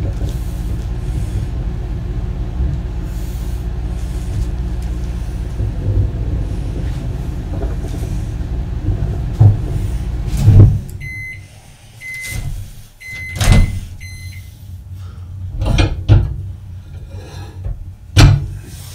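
Microwave oven running with a steady low hum while heating plastisol. The hum stops abruptly about ten seconds in, and the oven beeps several times to end its cycle, followed by a few loud clunks.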